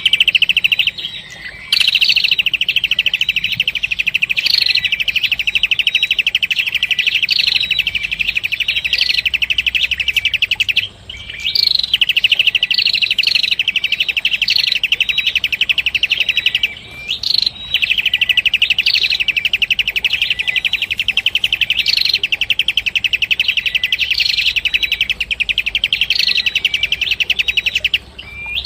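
Red-headed prenjak (prenjak kepala merah), a small prinia-type songbird, singing a fast, high trill of rapidly repeated notes in long runs of several seconds, with a short rising note every couple of seconds. The song breaks off briefly twice, about eleven and seventeen seconds in.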